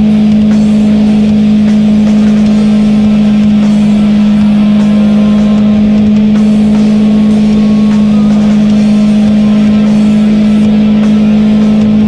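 Suzuki SV650 V-twin motorcycle cruising at steady freeway speed: a loud, unbroken drone that holds one pitch, over low wind rumble on the microphone.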